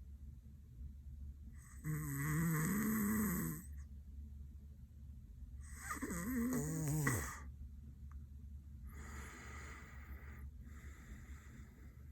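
A sleeping man snoring through an open mouth: two loud snores with a low, wavering drone, about four seconds apart, then two softer breaths.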